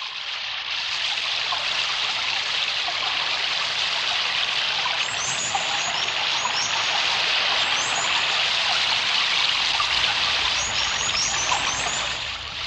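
Steady rushing of a flowing stream, with a few short, high bird chirps around five to seven seconds in and again around eleven seconds; it dips in level near the end.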